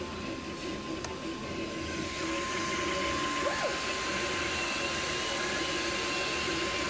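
Cetus3D desktop 3D printer running mid-print: a steady fan whir with a constant tone, and stepper motors whining as the print head moves, including one quick rising-and-falling glide about halfway through. The sound grows a little louder about two seconds in.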